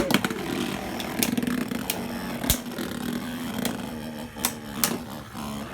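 Two Metal Fight Beyblade tops, Earth Eagle and Rock Leon, spinning against each other with a steady whirring hum. Sharp clacks come every so often, about six in all, as the metal tops collide.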